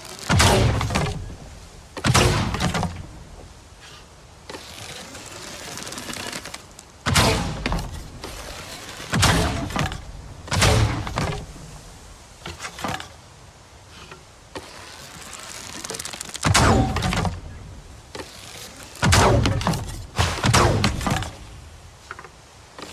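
Bow-and-arrow sound effects in the style of the Na'vi bow: a series of sharp shot-and-thunk sounds, about nine in all, a second to five seconds apart, with a steady hiss between them.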